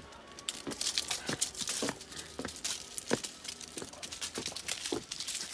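Footsteps walking down a paved lane strewn with dry fallen leaves, about one step every half second or so, the leaves crackling and rustling underfoot.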